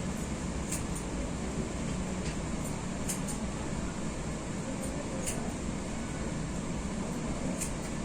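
Barber's head massage: a steady hiss and hum throughout, with about five faint sharp clicks scattered through it, two of them close together a little after three seconds in.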